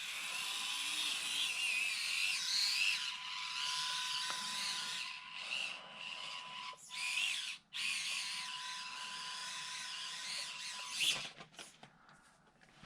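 Axial SCX24 Deadbolt 1/24-scale RC crawler's small electric motor and gear train whining as it drives, the pitch wavering with the throttle and briefly cutting out a few times. The motor stops about eleven seconds in, leaving a few faint ticks.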